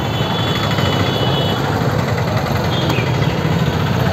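Steady low rumble of an idling engine amid street noise.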